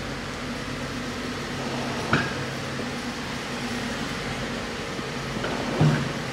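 Steady mechanical hum, with two short knocks, one about two seconds in and a louder one near the end.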